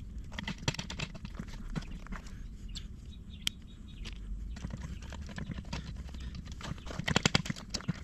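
Metal clicks and taps from a remote hydraulic crimping head as a copper lug on heavy battery cable is set into its die, with a quick run of louder clicks near the end.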